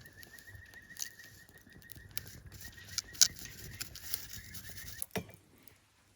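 Wood fire crackling, with irregular sharp pops and snaps. The crackling cuts off with a knock a little after five seconds.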